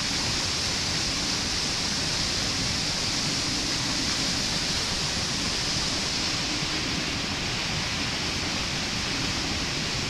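Mountain stream flowing over rocks: a steady rush of water.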